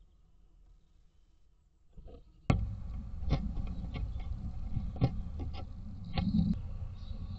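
Scratching and clicking of a tit's claws on the wooden nest box as it climbs to the entrance hole and leaves, over a steady hiss from outside. The first two seconds are very quiet, then a sharp click and the background jumps louder; faint bird chirps come from outside near the end.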